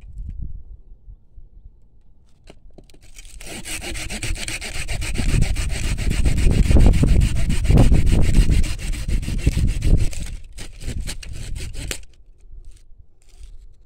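Curved hand pruning saw cutting through the woody trunk of an old grapevine with fast back-and-forth strokes. The sawing starts about three seconds in and stops suddenly about twelve seconds in.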